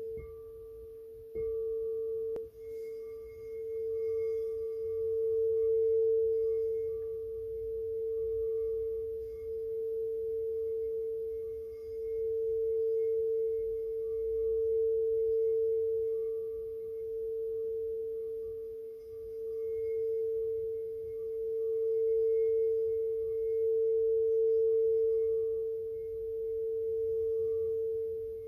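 8-inch frosted crystal singing bowl tuned to A, sung by circling a mallet around its rim: one steady pure tone that swells and fades in slow waves. Two light knocks of the mallet on the bowl come in the first few seconds.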